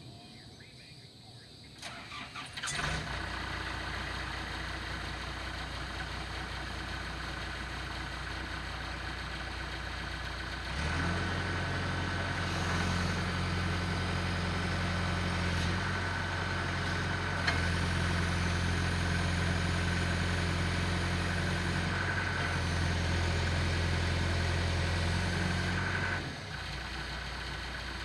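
Backhoe engine being started: a brief crank about two seconds in, then it catches and idles. About eleven seconds in it runs louder and holds there, then drops back to idle shortly before the end.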